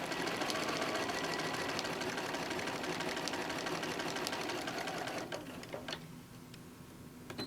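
Sewing machine stitching at a steady speed, a rapid even ticking of the needle, stopping a little after five seconds; a few faint clicks follow.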